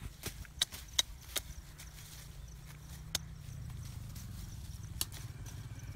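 Woody brush stems being cut with a machete and broken, giving sharp, irregular cracks: several within the first second and a half, then a few more spread out, over a low rumble.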